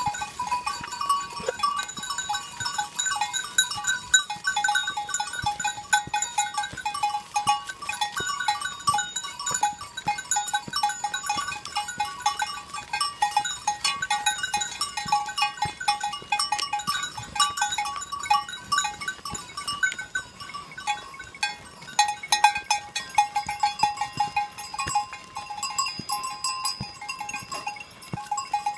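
Many bells on a walking herd of goats clanking rapidly and without pause. Bells of several fixed pitches ring over one another throughout.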